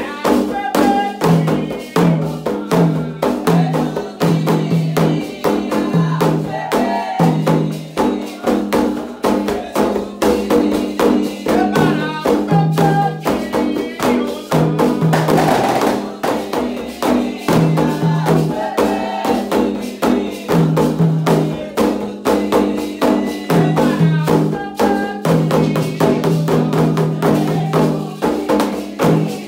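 Candomblé ritual music: atabaque hand drums played in a dense, steady rhythm under singing voices. A brief hissing burst comes about halfway through.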